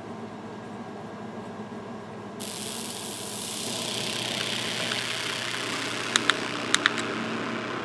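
Radio static hiss that cuts in suddenly a couple of seconds in, over a low steady hum, with four short clicks near the end: the receiver's channel opening between alert broadcasts.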